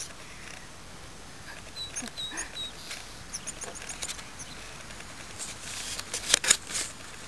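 Faint bird chirps, short and high, about two to four seconds in, then rustling with a sharp click a little after six seconds.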